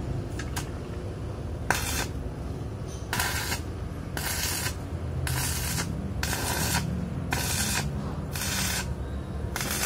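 Stick-welding arc on steel, crackling and hissing in short bursts of about half a second, roughly once a second, as the weld is laid down in stitches. A steady low hum runs underneath.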